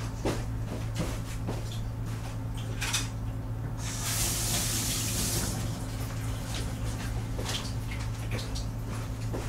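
A water tap running briefly, about four seconds in, for a second and a half, over a steady low hum with scattered light clicks and knocks.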